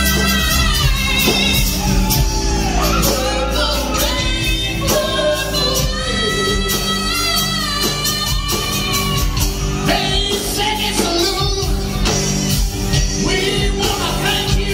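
A live country-rock band playing loudly, with a woman singing lead into a microphone over bass, drums and acoustic guitar. The sound is amplified through the PA in a large hall.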